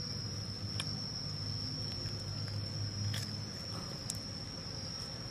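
Steady high-pitched insect trill over a low steady hum, with a few faint clicks.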